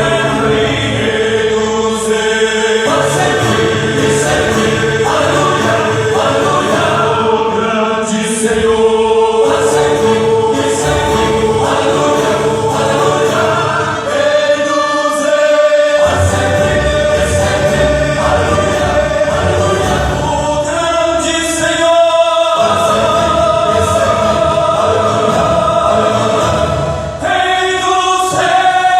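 Two gospel vocal quartets singing together in harmony, holding long sustained chords. The top note steps higher three times: about halfway through, again about two-thirds through, and once more near the end.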